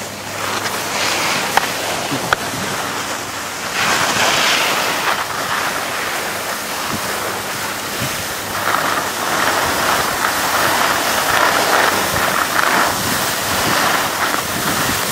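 Skis sliding and scraping over packed snow: a continuous hiss that swells about four seconds in and again through the second half, mixed with wind rushing over the microphone.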